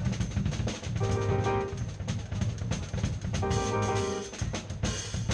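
Band music: a drum kit plays a busy groove of kick, snare and cymbals over a bass line, with held keyboard chords coming in twice.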